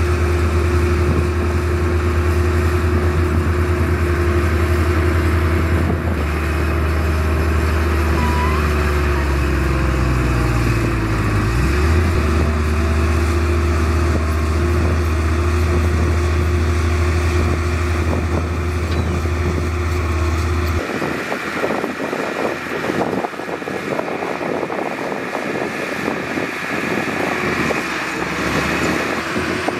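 An engine running steadily with a deep hum; its pitch sags and recovers about eleven seconds in, and it cuts off abruptly about twenty-one seconds in, leaving a noisy rush.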